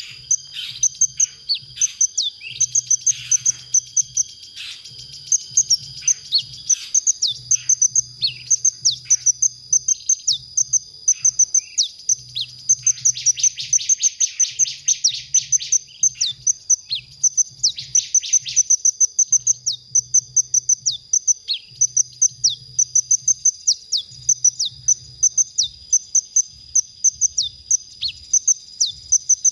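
Male konin sunbird singing: fast, steady runs of high, thin chirps repeated throughout, broken by a rapid buzzy trill about halfway through and a short one just after. A steady high-pitched whine sits underneath.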